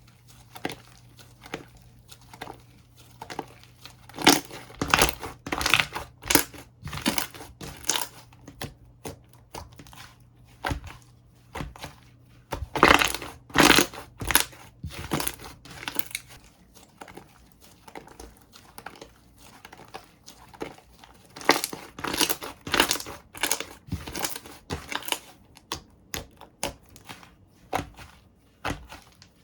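Slime being squished and pressed by hand, giving irregular clusters of crackling pops and clicks, with quieter stretches between.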